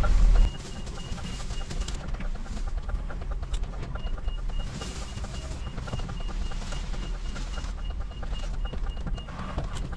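Articulated lorry's diesel engine heard from inside the cab, dropping from a loud run to a quieter idle about half a second in. A repeated short high beep sounds over it, pausing for about two seconds early on and then running until near the end.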